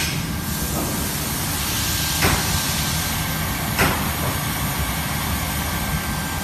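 Hot-air roof welder running: a steady hiss of the heating blower over a low rumble, with a faint steady high tone and two sharp clicks, about two and four seconds in.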